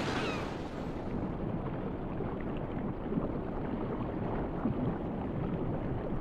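Steady rumbling noise of sea water, turning duller and more muffled about a second in.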